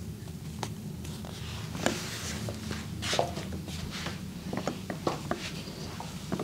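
Hands massaging a person: brief rubbing and rustling of skin and cloth with scattered small clicks and taps, over a steady low hum.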